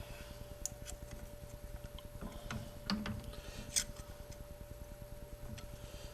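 Scattered light clicks and taps of metal parts and spacers being handled while a workpiece is clamped, over a steady faint hum.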